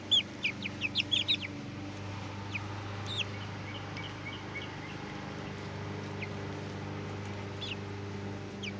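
Young chicks peeping: short, high-pitched, falling peeps, a quick run of them in the first second and a half, then scattered ones, over a steady low hum.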